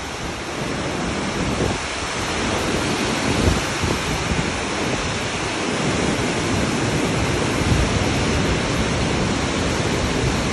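Mountain river rushing over boulders in a rocky gorge: a steady, even rush of white water, growing a little louder after the first second.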